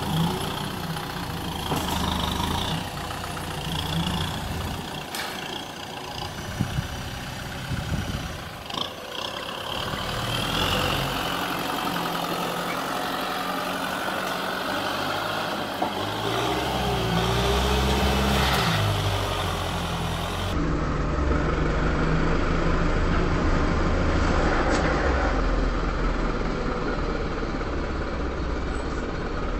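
Kubota M6040SU tractor's diesel engine running under load as it pushes loose sandy soil with its front blade, engine speed rising and falling about halfway through.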